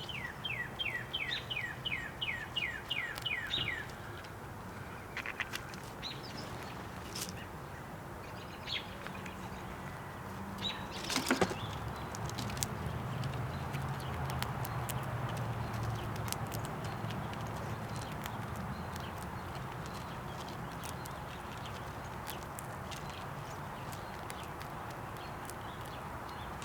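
A songbird singing a quick series of about a dozen down-slurred whistles over the first four seconds. Scattered faint ticks and a single sharp knock about eleven seconds in follow, over a steady low outdoor rumble.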